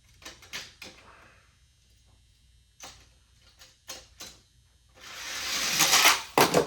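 Plastic clicks as toy cars are handled on a toy track. About five seconds in, small toy cars begin rolling fast down the plastic track, a rushing sound that grows louder and ends in a clatter as they land.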